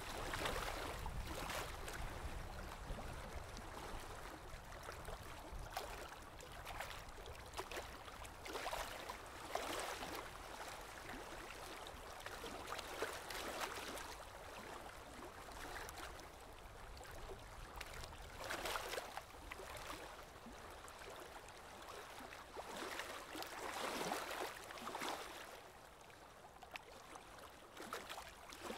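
Small Lake Erie waves washing onto the shore, a soft rushing that rises and falls every few seconds.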